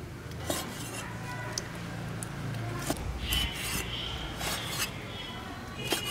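A cleaver slicing raw lamb into small pieces on a chopping board: soft rasping cuts, with a few sharp knocks of the blade against the board.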